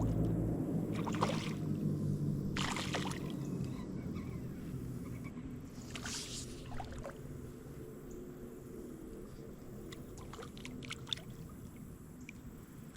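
Water splashing and sloshing as a hooked spotted bass is fought on the line, with a few sharp splashes about 1, 3 and 6 seconds in and a low rumble that fades over the first few seconds.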